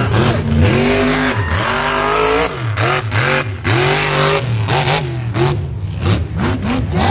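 Mud bog truck's engine revving hard as it charges through a mud pit, its pitch rising and falling over and over, in quicker swings after about two and a half seconds.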